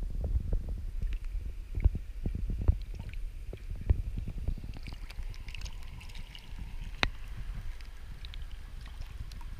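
Muffled low rumble of stream water heard through an underwater camera's housing, with many small knocks and clicks over the first few seconds. From about halfway a faint water hiss joins in, and one sharper click comes about seven seconds in.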